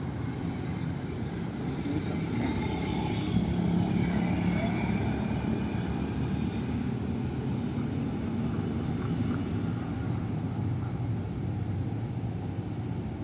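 Steady low engine rumble, a little louder about four seconds in.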